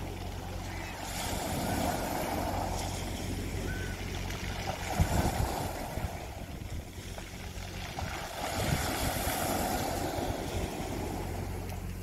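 Small waves breaking on a pebble beach and washing back over the stones, swelling about every three to four seconds, over a low steady hum.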